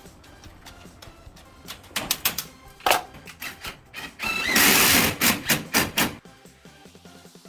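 A run of sharp knocks and clicks, with a loud rushing hiss for about two seconds just past the middle, over background music.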